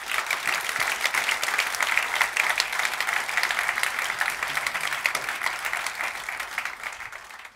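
Audience applauding steadily, with many hands clapping at once, easing slightly in the last couple of seconds and cutting off abruptly near the end.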